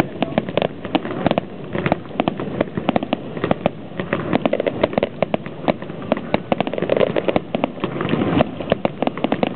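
Fireworks going off in rapid succession: a dense run of sharp bangs and pops, several a second without a break.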